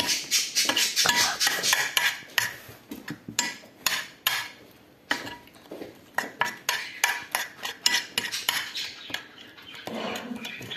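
A spoon clinking and scraping against a bowl as a wet slime mixture of soaked napkins, baking soda, shampoo and soap is stirred: quick irregular clicks, thinning out in the middle, with a duller scraping stretch near the end.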